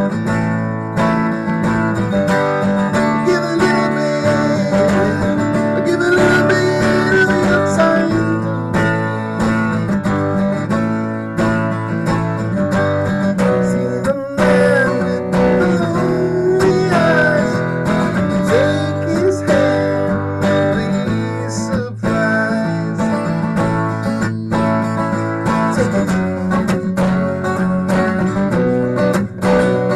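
Ukulele strummed steadily in chords, with a man's voice singing over it in places.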